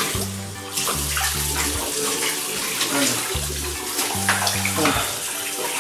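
Running water splashing from a tap, with background music and its stepping bass line underneath.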